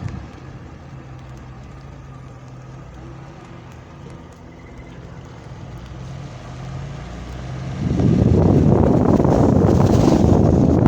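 Wind buffeting the microphone with a loud low rumble. It drops away just after the start, leaving a quieter stretch with a steady low hum, then comes back strongly about eight seconds in.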